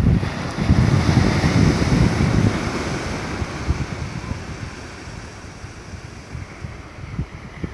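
Small surf breaking and washing up a sandy beach as a steady hiss, with wind buffeting the microphone. The buffeting is strongest in the first couple of seconds and then eases, leaving a quieter wash of surf.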